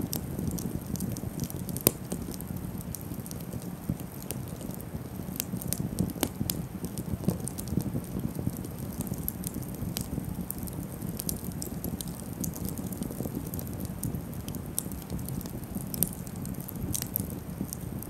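Wood campfire burning: a steady low rush of flame under frequent sharp crackles and pops from the burning sticks, with one louder pop about two seconds in.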